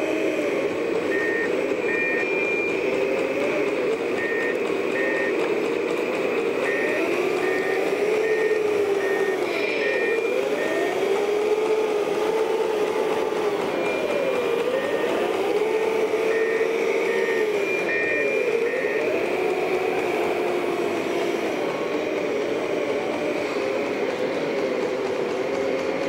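Scale RC construction machines working, a wheel loader loading an articulated dump truck. Their motor sounds rise and fall in pitch several times over a steady mechanical hum. Short high reversing beeps come in runs of several, about two a second, on and off throughout.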